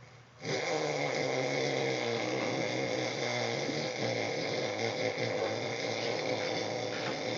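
A man snoring: a loud snore starts suddenly about half a second in and runs on without a break for several seconds.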